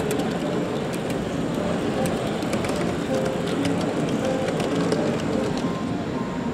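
Busy exhibition-hall background: a steady murmur of crowd chatter and hall hum, with scattered light clicks in the first few seconds.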